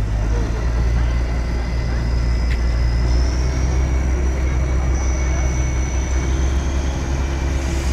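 Narrow-gauge diesel locomotive of the Darjeeling toy train running as it hauls its coaches past, a steady low engine rumble with a thin high whine that steps up in pitch about three seconds in and again near five seconds.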